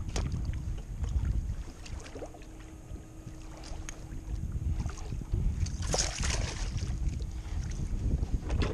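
Wind rumbling on the microphone over water against a plastic fishing kayak, with scattered small knocks and a short burst of splashing about six seconds in as a hooked red drum is hauled up beside the kayak by hand.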